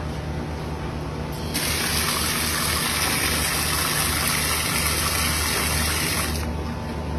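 Hose water jet spraying into a plastic tub: a loud hiss of spray striking plastic starts about a second and a half in and stops near the end, over a steady low hum.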